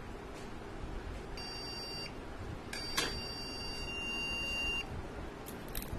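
Motherboard's onboard buzzer sounding the RAM beep code, the warning for no memory installed: a high-pitched beep of under a second, then a longer beep of about two seconds. A click comes about three seconds in.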